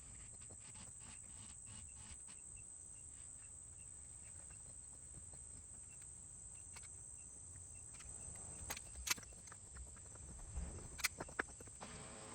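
Quiet background with faint scattered ticks, then a handful of sharp knocks in the last few seconds.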